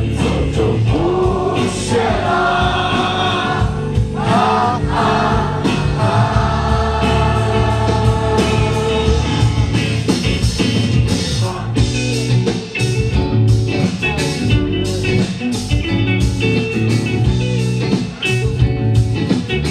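Rock band playing live, with singing over guitar, bass and drums. The sung lines stand out in the first half; from about ten seconds in the drums and guitar take over, with sharp drum hits.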